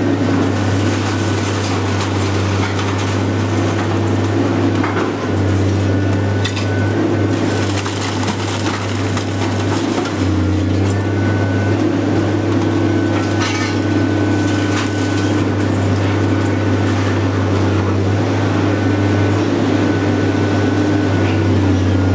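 Taurus hydraulic shear baler running on scrap metal: a steady low drone from its hydraulic power unit that dips briefly a few times, with scattered metallic clatter and clanks from the scrap.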